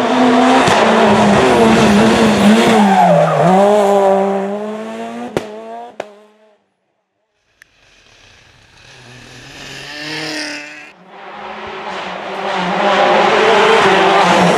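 Rally cars at full throttle on a special stage, engines revving, their pitch falling and rising through gear changes, with a sharp crack about five seconds in. The sound cuts out for a moment a little after six seconds, then another rally car approaches and runs at high revs near the end.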